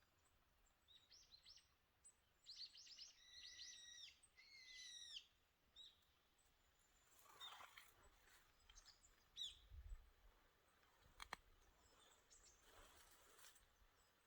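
Small birds calling: a quick run of high chirps in the first few seconds, then scattered single calls. A couple of brief rustles and one sharp click break in later.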